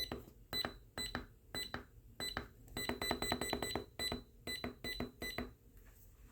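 Short, pitched click-beeps from an oscilloscope's control as its knob is turned step by step to zoom out the timebase. Single clicks come at first, then a quick run of about eight a second near the middle, and they stop about a second before the end.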